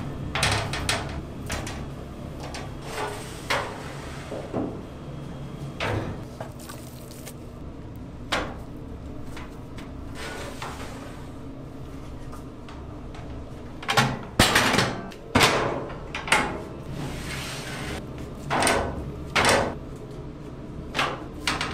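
Steel grates and pull-out racks of an offset smoker clanking and knocking as slabs of rubbed pork spare ribs are laid on them, in irregular knocks that are loudest in a quick cluster about two-thirds of the way through, over a steady low hum.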